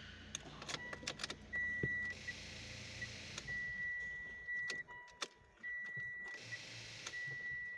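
Car key clicking and jangling in the ignition, then a thin, high electronic warning beep from the dashboard that keeps breaking off and coming back. The engine does not crank: the car's battery is flat.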